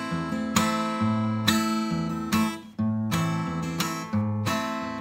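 Steel-string acoustic guitar played in a bass-and-strum pattern: a single bass note picked, then a down-up strum, in an even rhythm of about one stroke every 0.8 s. The bass note alternates between two strings.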